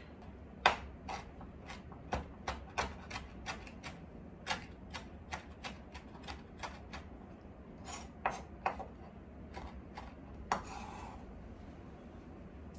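Chef's knife chopping frozen lemongrass on a wooden cutting board: sharp knocks of the blade on the board in quick irregular runs, about three a second, with a brief scrape near the end.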